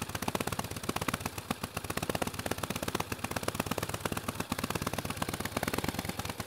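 A 1915 Harley-Davidson's intake-over-exhaust V-twin running, a quick, even stream of sharp exhaust pops at a steady pace.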